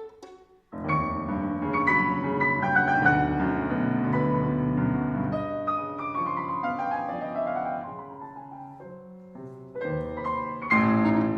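Piano playing a contemporary classical concerto passage: after a brief hush it comes in suddenly about a second in with a dense, ringing cluster of notes, runs downward in the middle, pauses briefly near the end, then strikes again.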